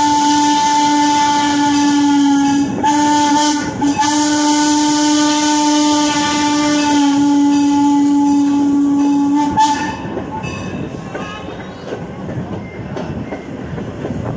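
Norfolk & Western No. 475 steam locomotive's whistle blowing long blasts, broken twice briefly, stopping about ten seconds in; after it, the passenger train rolling along the rails.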